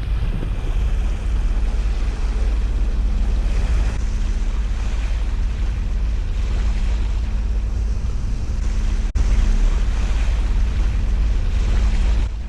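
Wind buffeting the microphone as a heavy, steady low rumble, over the rush of water along a sailboat's hull in gusty conditions. There is a brief dropout about nine seconds in, after which it is a little louder.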